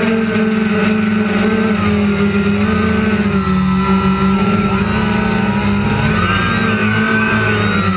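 Small drone's electric motors and propellers whining steadily in flight, the pitch shifting slightly as it turns.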